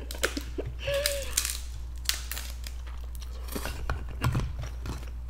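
Close-miked mukbang eating sounds: a slurp of spicy noodles about a second in, then scattered clicks and crackles of king crab shell being handled, with a couple of dull thumps around four seconds in as a crab leg is set down on a wooden board.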